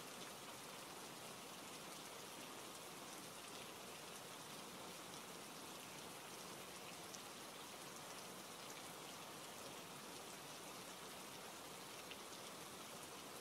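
Steady rain falling: a faint, even hiss with a few scattered drop ticks.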